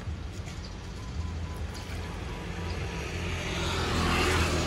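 Sugarcane juice pouring from a plastic jug into plastic bottles, a trickling splash that grows louder over the last second or so, over a steady low rumble.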